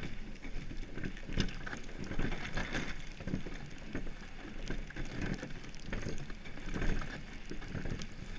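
Monotype XV iceboat running over the ice: the runners rumble and crackle on the surface and the hull and rigging rattle, with many uneven clicks and knocks.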